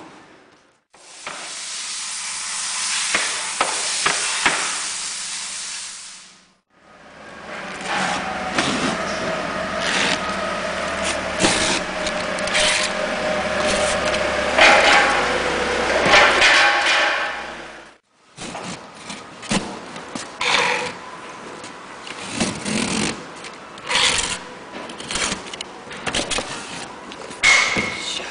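Wooden pallet runners and a large cardboard crate being handled on a concrete floor: rubbing and scraping of wood and cardboard, with sharp knocks that come thick near the end. Through the middle stretch a low steady mechanical hum with a wavering tone runs beneath.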